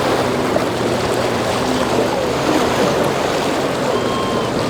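Boat engines running through rough inlet waves, mixed with a steady wash of surf and water.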